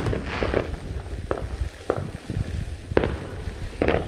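Neighbourhood fireworks going off: a series of sharp bangs at irregular intervals, the loudest right at the start and about three seconds in, with a brief crackle just after the first bang.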